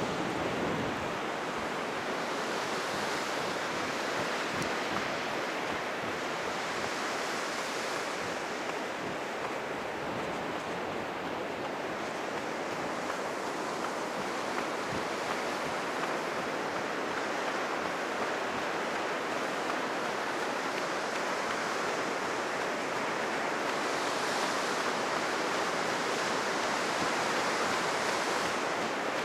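Heavy Pacific surf breaking and washing on a sandy beach, a continuous rushing wash that swells louder a few times; the waves are high after a typhoon.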